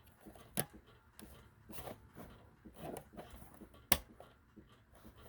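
Handling noise: faint rustling with a few short clicks, the sharpest about four seconds in.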